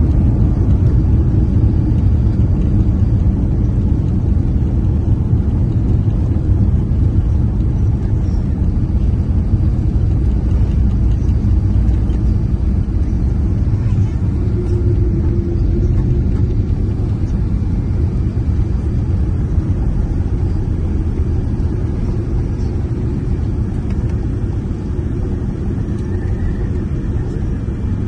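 Cabin rumble of a Boeing 787 rolling down the runway after touchdown: a loud, steady low rumble that slowly fades as the airliner slows.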